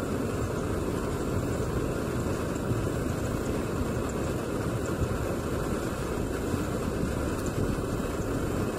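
Portable gas camping stove burner running under an aluminium kettle, a constant, even rushing noise.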